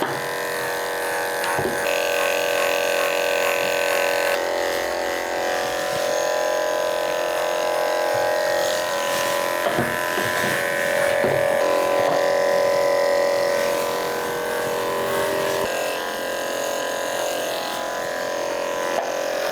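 Electric pet grooming clippers with a 10 blade running steadily as they shave through a cat's matted fur, a continuous buzz that shifts slightly in strength as the blade meets the coat.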